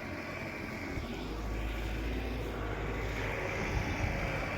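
4x4 pickup truck's engine running steadily on the move, with a low rumble that strengthens about a second in.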